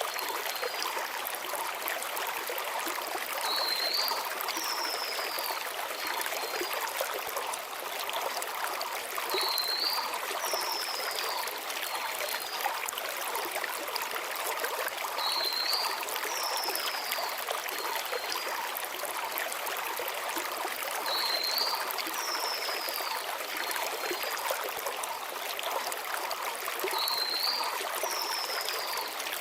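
Shallow mountain stream running steadily over stones. A small songbird repeats the same short phrase about every six seconds: a quick upturned note, a falling whistle, then a few short high notes.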